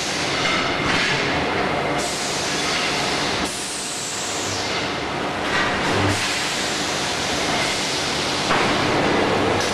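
Motorcycle wheel-rim roll forming machine running, its steel rollers turning and forming a rim, a loud steady industrial rumble and hiss that changes level abruptly a few times.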